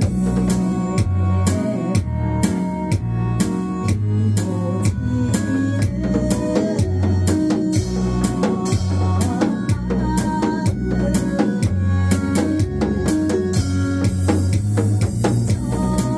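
Janggu drumming with sticks on a stand-mounted set of janggu drums and a cymbal, keeping a steady, dense beat over a trot backing track with bass and melody.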